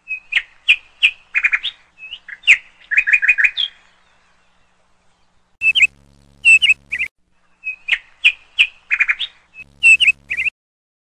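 Bird chirping in quick runs of short, high chirps, several a second, with a pause of about a second and a half near the middle.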